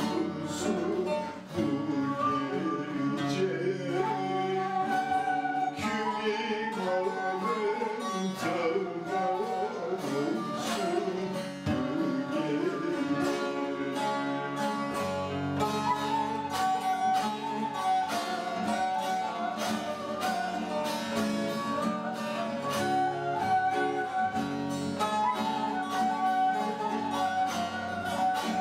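Turkish folk tune (türkü) played on a bağlama, accompanied by acoustic guitar and other plucked string instruments, a busy stream of plucked notes.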